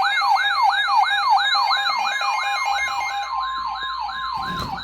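Emergency Alert System attention signal for a flood warning: a loud siren-like tone sweeping up and down about three times a second over a steady tone. It cuts off near the end, just before the spoken warning.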